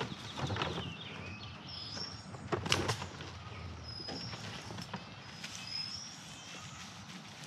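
Cut conifer boughs rustling and crunching as they are gathered by hand and pushed into a plastic wheeled bin, loudest about half a second in and again near three seconds. Faint high chirps sound now and then.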